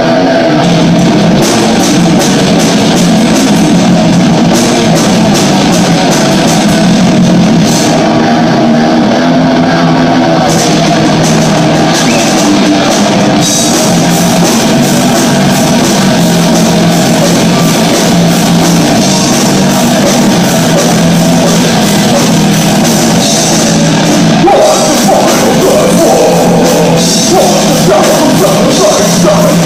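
Heavy metal band playing live and loud: distorted electric guitars, bass guitar and a drum kit. Vocals come in about three quarters of the way through.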